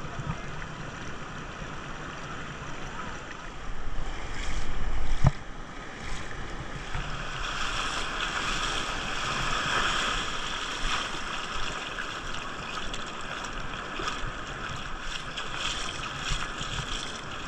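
Shallow surf washing over flat wet sand, a steady hiss with fizzing crackles that gets brighter about seven seconds in. About four seconds in, wind buffets the microphone for a second or so, ending in a sharp knock.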